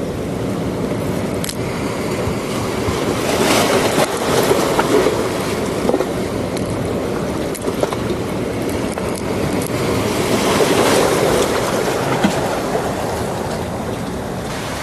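Sea waves surging and breaking, with wind; the noise swells about four seconds in and again around ten seconds.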